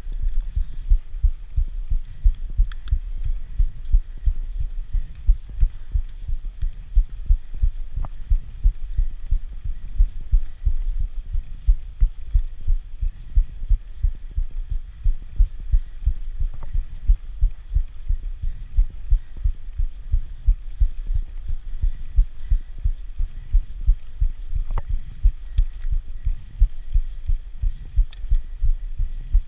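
Low rumbling buffeting on an action camera's microphone while a mountain bike is ridden uphill: a steady pulse of dull thumps, a couple of times a second, with a few faint clicks.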